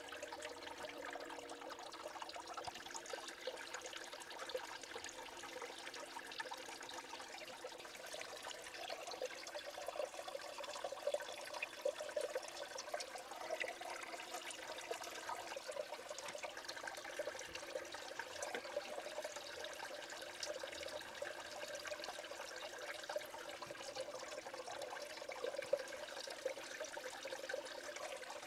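Steady swirling and trickling of water in a Blue Bowl gold concentrator, fed by a small submersible pump, as the flow washes light sand over the centre drain and leaves the gold at the outer edge.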